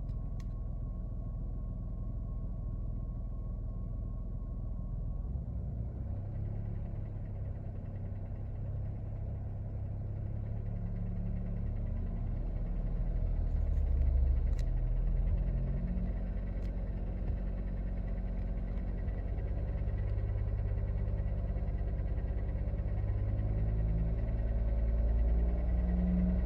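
Daihatsu Taft heard while driving, a steady low engine and road rumble that grows louder about halfway through. A thin high steady tone sounds for the first five seconds or so. The owner is recording this as an abnormal noise that has come back.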